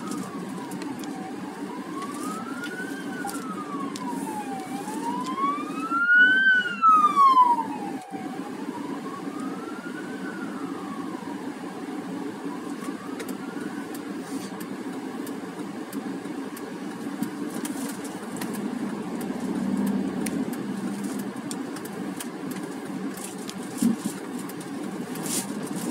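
Ambulance siren wailing, rising and falling slowly in pitch about every three and a half seconds. It is loudest a few seconds in as the ambulance passes, then fades out about halfway through. Steady car engine and road noise runs underneath.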